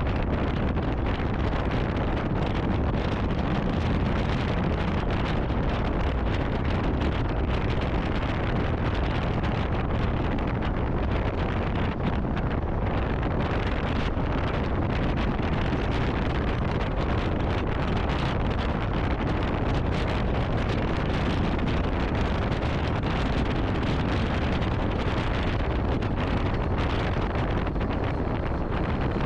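Passenger cars of a train rolling past close by: a steady rumble of steel wheels on the rails with many small clicks, under heavy wind noise on the microphone.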